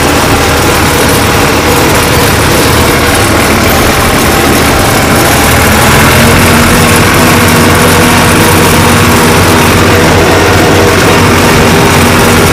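1974 Long 350 farm tractor's diesel engine running steadily, picking up a little in loudness and pitch about six seconds in.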